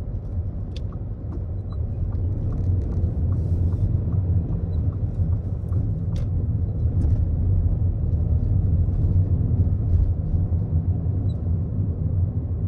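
Car cabin noise while accelerating: the engine and tyres make a steady low rumble that grows louder over the first couple of seconds. For about the first half there is a light regular ticking, about two a second, from the turn signal.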